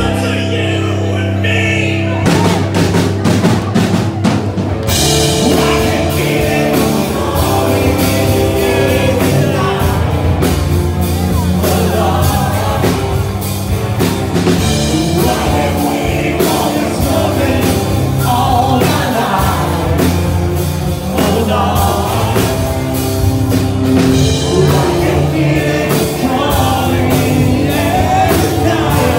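Live rock band playing loudly with singing and a drum kit; the drums come in with single hits about two seconds in, and the full band with cymbals joins about five seconds in.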